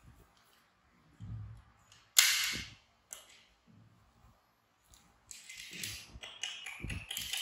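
Handling noise as a baby macaque's disposable diaper is fitted: a single sharp crackling snap about two seconds in that dies away within half a second, then rustling and crinkling of the diaper and sheet near the end, with soft bumps.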